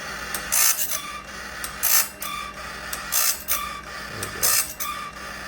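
Timberking Talon blade sharpener grinding a sawmill band blade tooth by tooth. A short grinding scrape comes about every 1.3 s as the wheel passes through each tooth face and gullet, over the steady hum of the machine. This is a light touch-up sharpening on the second time around the blade, with the wheel barely touching.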